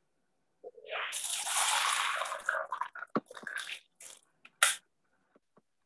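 Water poured from one glass into another, heard over a video call, followed by a few short knocks and clicks of the glasses.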